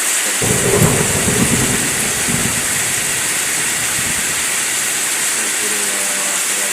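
Heavy rain with wind: a steady hiss of rain, and gusts of wind buffeting the microphone as a low rumble for about two seconds near the start.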